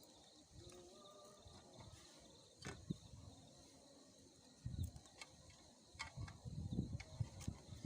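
Faint scattered knocks, clicks and rustling of camp cooking gear being handled to cook potatoes, a little busier near the end.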